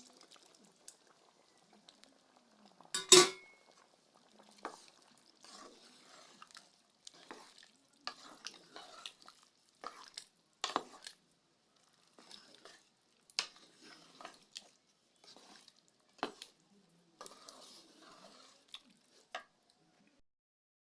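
A spoon stirring and scraping in a cooking pot as boiled corn and beans are mixed into the sauce, with a loud clank about three seconds in, then irregular scrapes and knocks against the pot that stop near the end.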